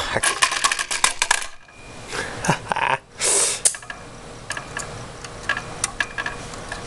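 A wire from a 13.8-volt, 23-amp power supply arcing against a motherboard's contacts. Sharp crackling snaps come in a fast run for the first second and a half, then a few more, a short hissing burst a little after three seconds, then scattered lighter clicks.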